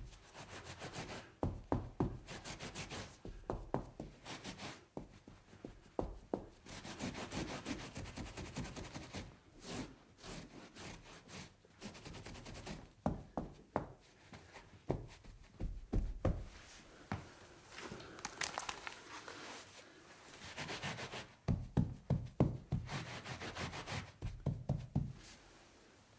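A spill being cleaned up by hand: rubbing and wiping across a surface, broken by irregular knocks and clunks of things being handled and set down.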